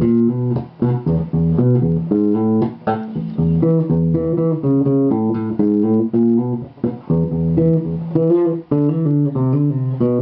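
Electric bass played through a small bass combo amp, plucking a syncopated forró bass line of short repeated notes.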